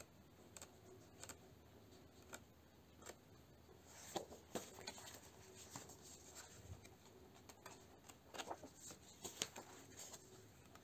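Faint paper rustling and light taps as thin paper coloring booklets are leafed through and handled, busier from about four seconds in.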